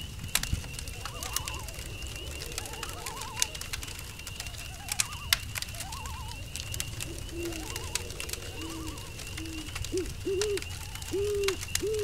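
Night-forest ambience: crickets chirring steadily, a campfire crackling with sharp pops, and frogs giving short wavering calls. From about seven seconds in, an owl hoots in a run of low hoots that grow louder toward the end.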